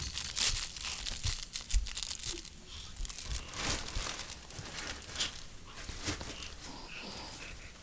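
Rustling and crinkling, with scattered clicks and soft knocks at irregular times.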